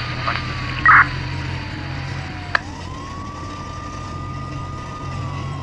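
A siren wailing slowly: its pitch slides down, climbs back about halfway through and holds, then starts to fall again. Under it is the low hum of an idling car, with a short loud blip about a second in and a sharp click just before the pitch climbs.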